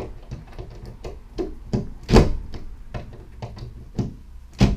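Irregular clicks and knocks of a window lock and its screws being handled and fitted against an aluminium sliding-window frame, with two louder thumps, one about two seconds in and one near the end.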